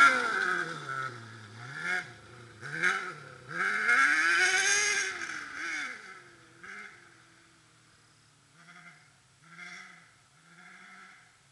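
600cc kart cross buggy engine revving up and down as the kart drives away, its pitch rising and falling with the throttle and gear changes and growing faint after about six seconds. Near the end only faint short bursts of sound remain.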